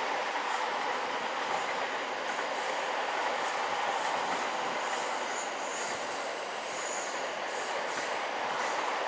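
A train running past on the rails with a steady rolling rumble, and a thin high wheel squeal that comes and goes in the second half.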